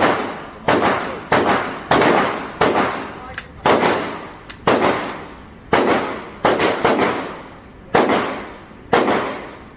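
.300 Blackout rifle fired steadily, about a dozen shots at roughly one a second, some in quicker pairs. Each shot is followed by a long echoing decay.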